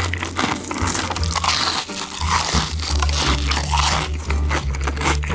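Crispy fried chicken crunching as it is bitten and chewed, in a run of sharp crackling crunches over background music.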